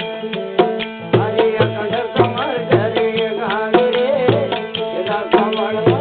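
Bhajan music: a hand drum keeps a steady beat of about two strokes a second under a steady drone and a wavering melody line.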